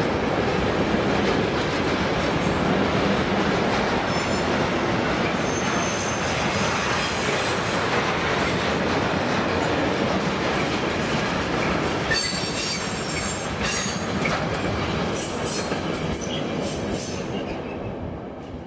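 A train running past on the rails, a steady loud rumble of wheels and cars, with short high-pitched wheel squeals from about two thirds of the way through; the sound dies away near the end.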